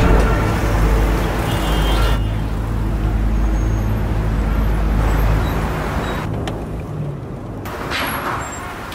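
Road traffic with car engines idling and running, and a low engine rumble that weakens about five and a half seconds in.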